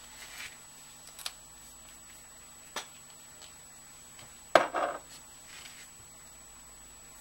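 A few light clicks and taps of small objects being handled, the loudest about four and a half seconds in, followed by a brief rustle.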